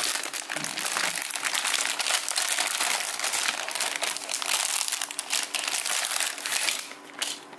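Clear plastic bags holding model-kit runners crinkling as they are handled and shifted about, a dense crackle that thins out near the end.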